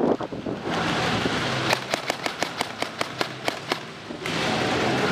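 Airsoft gun firing a rapid string of about a dozen shots, roughly six a second, for about two seconds.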